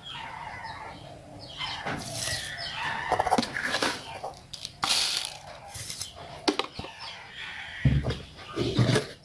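Domestic chickens clucking in short, irregular calls, with a few sharp clicks and two dull thumps near the end.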